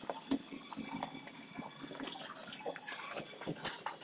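Gym room noise with scattered light clicks and knocks from barbell weight plates and equipment, the loudest about three and a half seconds in.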